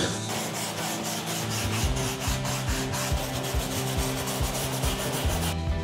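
Hand wire brush scrubbing the old covering off a car's headliner board in quick, evenly repeated back-and-forth strokes, which stop just before the end.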